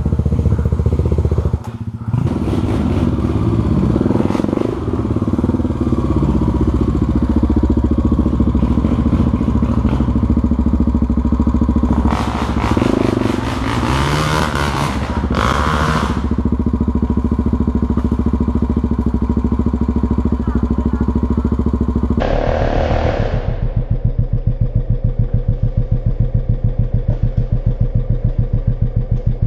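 Honda trail bike's single-cylinder four-stroke engine running and revving on a steep dirt climb, with loud noisy bursts around the middle. Late on the sound changes abruptly to an engine idling with an even pulse.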